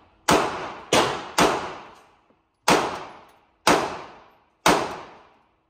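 Semi-automatic pistol fired six times at an uneven pace, each shot ringing off the walls of an indoor range as it dies away.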